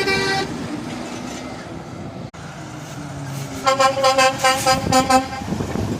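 Truck horn: one blast cuts off just after the start, then a rapid run of about eight short toots about four seconds in, over a steady traffic rumble.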